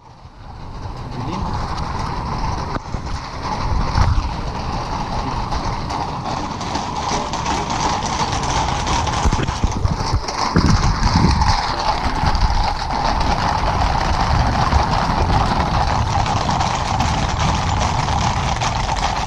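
Hooves of a large troop of ridden horses clip-clopping on a paved road as the column walks past, many hoofbeats overlapping without a single beat.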